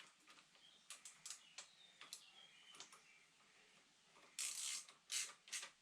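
Faint clicks and light scraping of parts and hand tools being worked by hand. About three-quarters of the way in comes a short, louder rasp, then two quicker ones.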